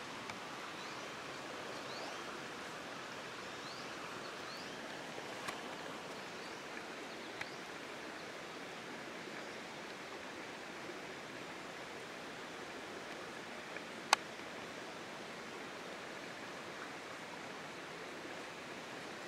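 Outdoor ambience: a steady rushing hiss, with a few faint short rising chirps in the first few seconds and scattered small clicks, the sharpest about fourteen seconds in.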